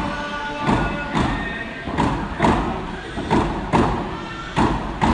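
Drums beaten in a steady heavy double beat, two strokes about half a second apart, repeating about every 1.3 seconds, with voices holding sung notes over them, ringing in a large hall.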